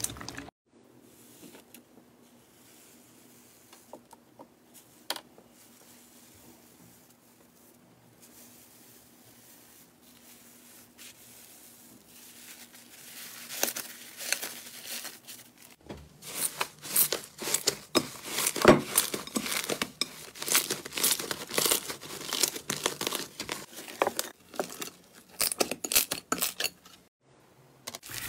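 Slime worked by hand: a quiet first half with a faint steady hum and a few soft clicks, then, from about sixteen seconds in, slime being squeezed and pressed with dense crackling and popping.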